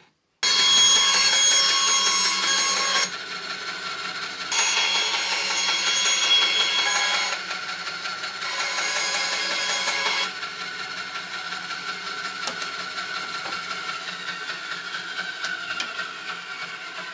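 A woodworking power tool running steadily with a ringing, whining tone, louder and quieter by turns in several stretches, and cutting off abruptly at the end.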